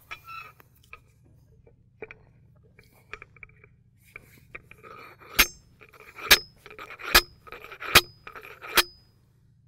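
Steel slide hammer driving a hole into field soil for a soil moisture sensor: a few light knocks as it is set in place, then five sharp metal clanks a little under a second apart in the second half, each with a brief ringing tone.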